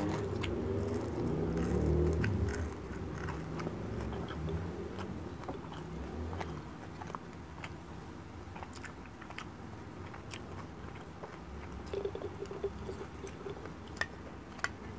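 Close-miked chewing of fried milkfish (bangus) and rice, with moist mouth clicks. It is louder for the first couple of seconds, then softer, with a few sharp clicks near the end.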